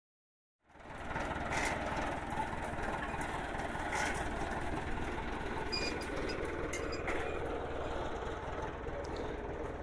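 Farm tractor engine running steadily, starting about half a second in, with a few short sharp clicks over it.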